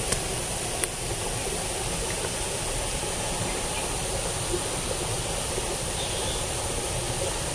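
Steady rush of flowing water in a rain-swollen ditch, with two small clicks in the first second.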